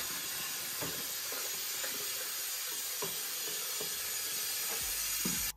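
Water running from a kitchen tap into a plastic measuring jug: a steady hiss that cuts off suddenly near the end.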